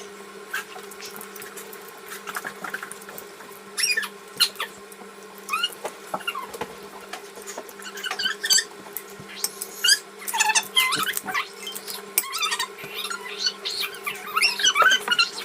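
Close-up mukbang eating sounds of seafood: irregular clicks, smacks and short squeaky sucking noises over a steady low electrical hum.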